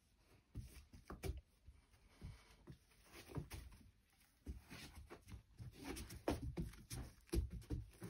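Faint, irregular soft knocks and rustles of a large dog's paws on a carpet as it walks about sniffing and turns to settle down, coming more often in the second half.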